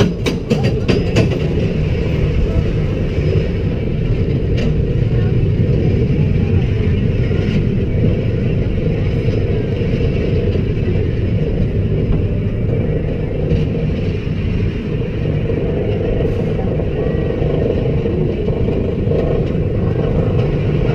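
Intamin Swiss Bob bobsled coaster car climbing its lift hill: a brief clatter at the start, then a steady low rumble of the lift and wheels with a few faint ticks. The car runs on soft wheels that replaced its original steel ones.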